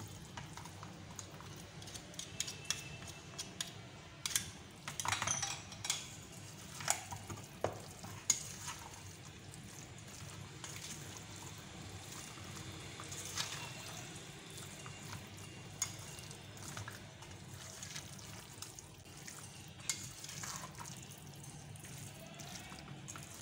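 Wooden spoon stirring chunks of beef through a thick yogurt-and-spice marinade in a stainless steel bowl: wet stirring with irregular scrapes and knocks of the spoon against the steel, busiest in the first third. A faint low hum runs underneath.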